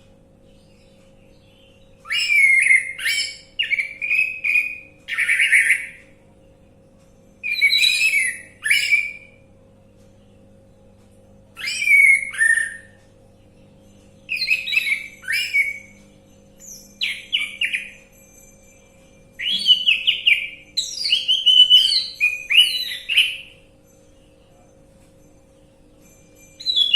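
Orange-headed thrush singing a series of short, varied whistled phrases, each a second or two long with pauses between. This is lure song meant to set a silent captive bird singing. A faint steady hum runs underneath.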